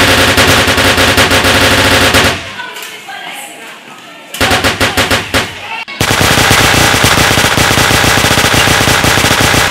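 Automatic-gunfire sound effect dubbed over Nerf blasters, in long rapid bursts. One burst ends about two seconds in, a shorter one comes near the middle, and a third starts about six seconds in and keeps going.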